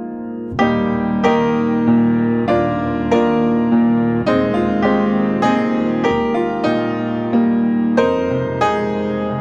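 Solo piano playing a slow, gentle piece, with a new note or chord struck about every half second or so, each ringing and fading.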